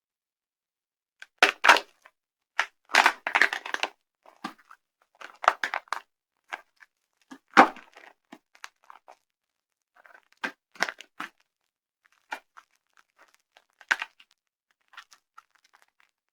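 Dry soap being crushed, crunching and crackling in short bursts separated by silent pauses, with the densest run in the first few seconds and sparser cracks after.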